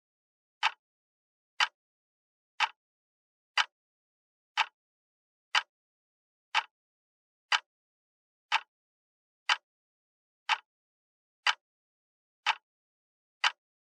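Clock ticking once a second: short, sharp, evenly spaced ticks, each alike, with silence between them.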